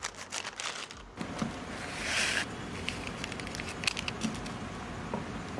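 Sizzling and crackling from an electric grill pan where momos are grilling and instant noodles are cooking in water, with scattered small pops and a short burst of rustling noise about two seconds in.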